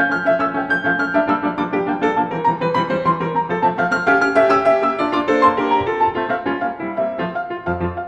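Solo piano playing a fast staccato étude in short, detached notes and chords. Low bass notes come in near the end.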